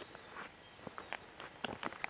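Footsteps walking on a gravel path: several short, uneven steps.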